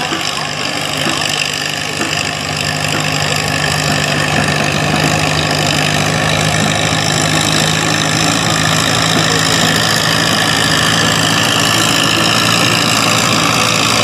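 Farmall farm tractor's engine running steadily under load while it drags a weight-transfer pulling sled.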